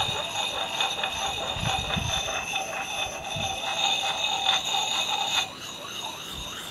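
Round sharpening puck, wetted with spit, rubbed in small circles on the steel bit of a Council Tool boy's axe: a fast, rhythmic scratchy rasp with a high ringing squeal over it that cuts out about five and a half seconds in.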